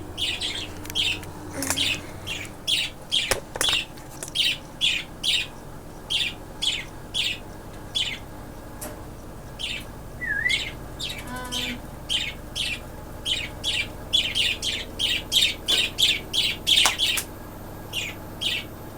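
Pet budgerigar chirping over and over in short, sharp calls, about two a second, pausing briefly about halfway through.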